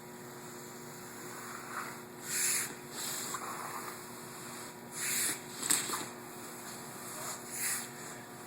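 Hook blade cutting vinyl sheet flooring along a scribed line: several short scraping strokes over a steady low hum, with a sharp click about six seconds in.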